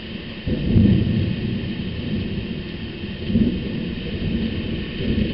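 Thunder from a night thunderstorm: a deep rumble that sets in sharply about half a second in and rolls on, swelling and fading several times.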